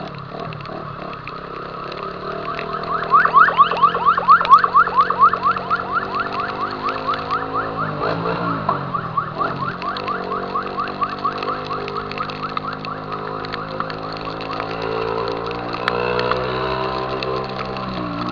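Honda Titan 150's single-cylinder four-stroke engine running through an aftermarket Viúva Negra exhaust, its pitch dipping and rising around the middle. Over it, loudest from about three seconds in, comes a rapid warbling chirp repeating about six times a second, which fades out about ten seconds in.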